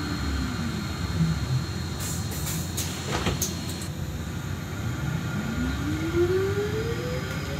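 Electric traction motor of a Solaris Trolino 12 trolleybus whining, heard inside the cabin over a low ride rumble. The whine falls in pitch and fades during the first second as the trolleybus slows. About five seconds in it returns, rising steadily in pitch as the trolleybus picks up speed. A short cluster of sharp clicks and rattles comes about two to four seconds in.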